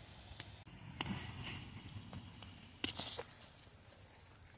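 Insects calling in a steady, high continuous trill, with a few light clicks and rustles.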